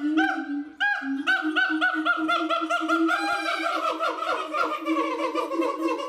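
A pair of siamangs screaming together in a loud voice, long runs of rapid arching whoops, several a second and overlapping, with a brief break about a second in. It is a duet that seems to claim the pair's territory.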